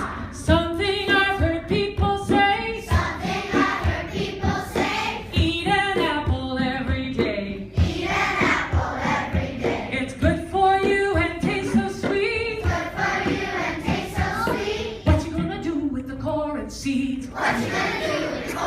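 A group of voices singing a song together in harmony, over a steady beat of short knocks.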